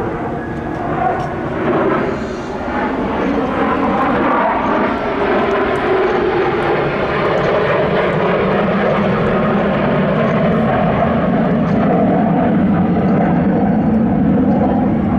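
Formation of US Air Force Thunderbirds F-16 fighter jets flying past, a loud, steady jet roar that builds slightly, its pitch sliding down in the first half.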